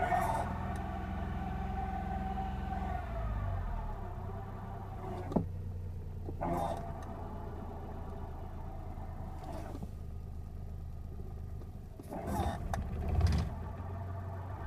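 Suzuki Cappuccino's F6A three-cylinder engine idling, with a whine from the clutch area that holds for about three seconds and then falls away. The whine comes only with the clutch pedal pressed past its free play and follows engine speed; the owner suspects a bearing running short of lubrication. A sharp click comes about halfway in, and brief rattly bursts follow later.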